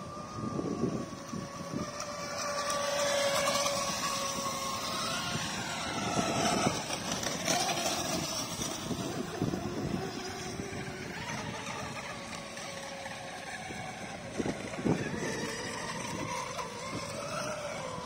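Radio-controlled racing boats running at speed out on the water: a motor whine that slowly falls in pitch, then swings up and down as the boats pass and turn. Gusts of wind rumble on the microphone.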